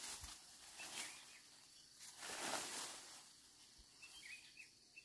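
Quiet rural outdoor ambience: a steady high insect drone, a few short bird chirps near the end, and swells of rushing noise, the loudest about two to three seconds in.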